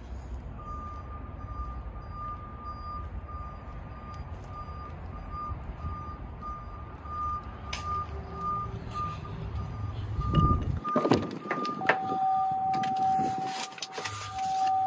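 Electronic beeper sounding a steady series of short beeps over a low rumble. The rumble cuts off about eleven seconds in, a few clicks and knocks follow, and the beeping gives way to one continuous tone.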